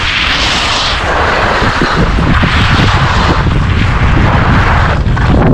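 Wind rumbling hard on the microphone of a fast-moving skier, with the hiss of skis carving groomed snow swelling and fading several times as the turns come and go.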